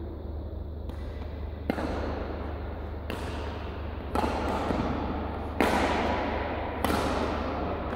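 Badminton rackets striking the shuttlecock back and forth in a doubles rally: about six sharp hits a second or so apart, each ringing on in the echo of a large sports hall. A steady low hum runs underneath.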